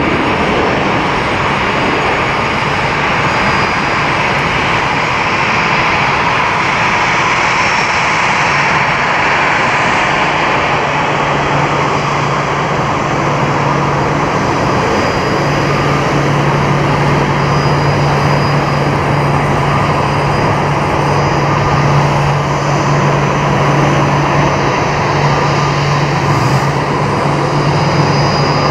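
Jet airliner engines running, a loud steady noise; a low hum comes in about eleven seconds in and holds.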